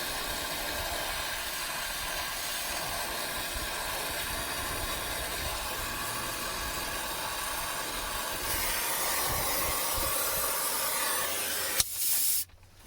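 Brazing torch flame hissing steadily as it heats a copper line joint. The hiss gets louder about two-thirds of the way through, then cuts off suddenly near the end with a click.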